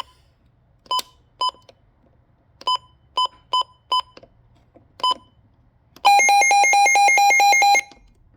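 Midland WR120EZ weather alert radio: seven short single beeps at uneven spacing, then a rapid pulsing alarm tone of about six pulses a second that lasts nearly two seconds and stops sharply. This is its alert siren being tested.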